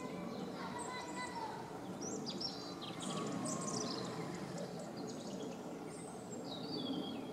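Small birds chirping and twittering, with quick falling chirps clustered about two to three seconds in and a whistled call near the end, over a steady low rumble of background noise.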